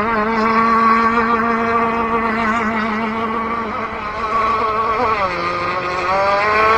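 Two-stroke gas engine of a radio-controlled boat running steadily at speed on its stock, untuned settings. About five seconds in its pitch drops as the throttle comes off, then rises again as it picks back up.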